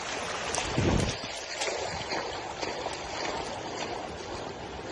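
Wind rushing and buffeting the microphone, a steady noise with a heavier gust about a second in.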